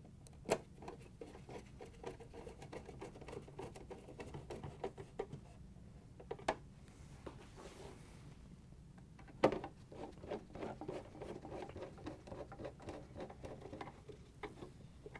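Quarter-inch nut driver turning screws into a plastic ice container housing: a faint run of small, rapid clicks and scratches, with three sharper knocks spread through it.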